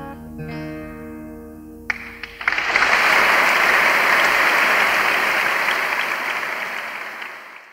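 Final acoustic guitar notes ring out. A few scattered claps come about two seconds in, then a live audience breaks into steady applause, which fades away near the end.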